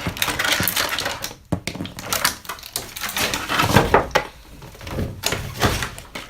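Plastic toy pieces and packaging being handled, giving a run of irregular clicks, rattles and crinkling.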